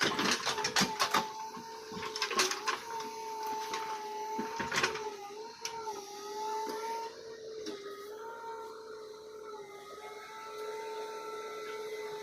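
A steady, slightly wavering mechanical whine, with clicks and clatter over the first few seconds and once more about five seconds in.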